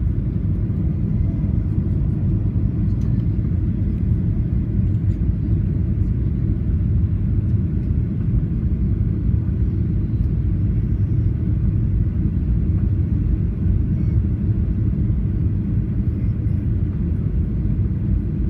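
Steady low rumble of a Boeing 737 jet airliner, even in level, with no change or distinct event.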